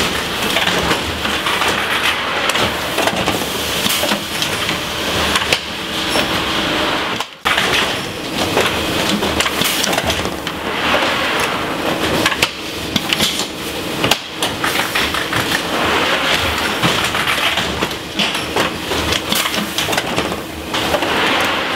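Automated cress packing machine running: conveyor belts and a gripper moving rows of cress punnets into cartons, with steady mechanical clattering and clicking and a brief break about seven seconds in.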